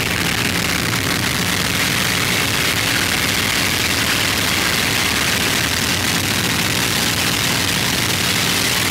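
Packard Merlin V-12 engine of a P-51D Mustang running steadily in flight, heard from inside the cockpit. Its low drone sits under a loud, even rush of air noise.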